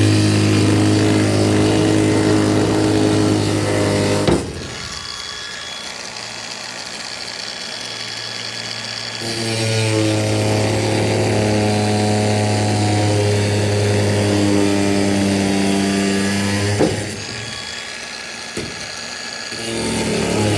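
Hand-held electric power tool cutting hogwire panel wire, running steadily in two spells: it stops about four seconds in and starts again a few seconds later, then runs for several seconds before stopping near the end.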